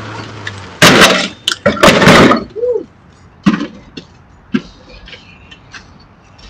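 A ride-on lawn mower tipping over onto its side, a loud clattering crash of thuds and bangs about a second in, cutting off a steady hum; a few lighter knocks follow.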